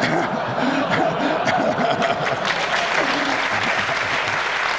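A large audience applauding: a dense, steady clatter of clapping, with a few voices mixed in.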